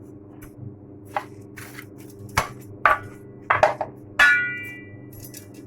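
Kitchen utensil knocking against a metal cooking pot as rice is spooned into it: several light knocks, then a ringing clang about two-thirds of the way through, over a steady low hum.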